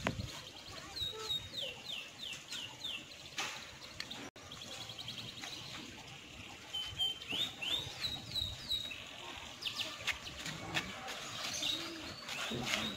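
A songbird calling: runs of quick falling chirps, several a second, about a second in and again a few seconds later.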